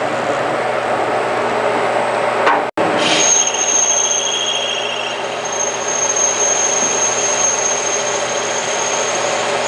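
Detroit Machine Tools FTL 320 CNC lathe running, its spindle turning the bar stock while a parting tool takes a turning cut. A high steady whine from the cut comes in about three seconds in, just after a brief dropout, and holds until near the end.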